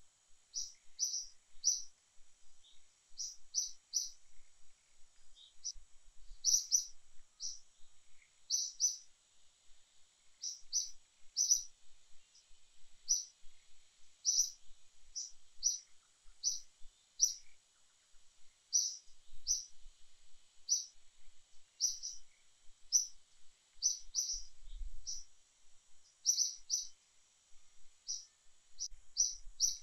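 A bird calling over and over with short high chirps, often two or three in quick succession, over a faint steady high-pitched tone.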